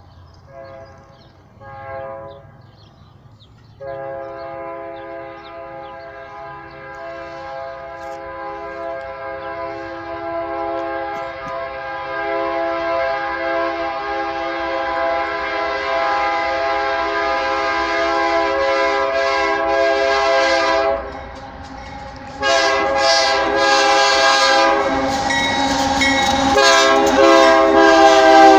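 Freight locomotive's air horn sounding a chord of several notes: a few short blasts, then one long blast held for about seventeen seconds, a short break, then more blasts. It grows steadily louder as the train approaches, with the noise of the passing train rising near the end.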